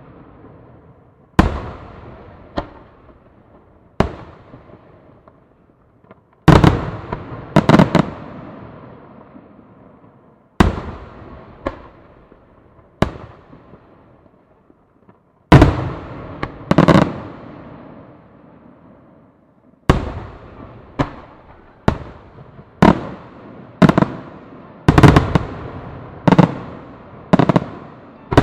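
Aerial firework shells bursting in a night display, loud booms each trailing off in a long fading echo. The blasts come every second or two at first, then crowd together in quick clusters in the second half.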